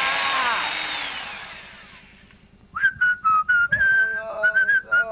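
A sound fades out over the first two seconds. After a short quiet, a whistled tune starts a little under three seconds in, moving between clear single notes.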